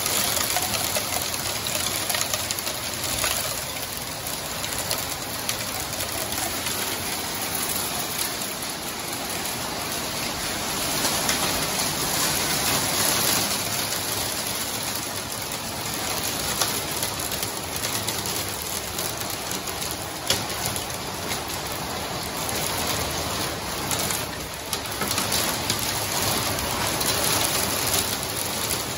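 Heavy rain pouring down in a dense, steady hiss, heard from indoors through window panes and swelling and easing in intensity. One sharp tap stands out about twenty seconds in.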